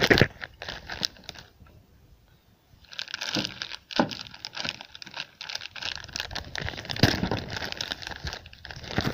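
Crinkling and rustling handling noise that stops for about a second and a half, then resumes, with a couple of sharp clicks.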